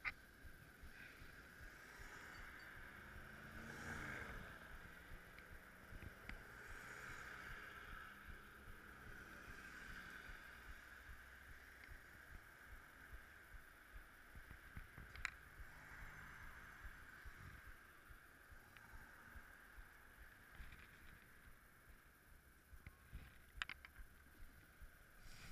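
Faint, muffled street traffic and riding noise heard from a moving bicycle, swelling briefly about four seconds in, with a couple of sharp clicks later on.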